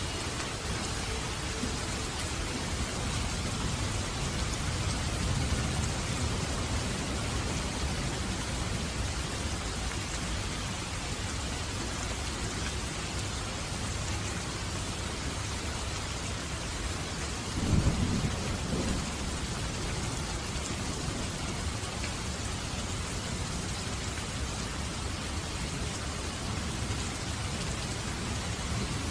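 Steady heavy rain with low thunder rumbling under it. A louder thunderclap comes about two-thirds of the way through.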